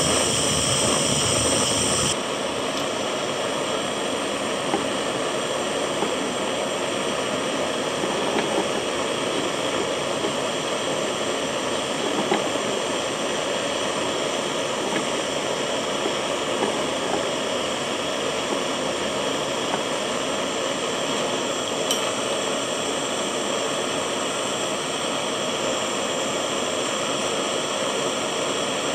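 Handheld butane torch flame hissing steadily as it melts 925 silver scrap in a ceramic crucible. About two seconds in, the hiss drops slightly and changes tone. A few faint ticks sound over it.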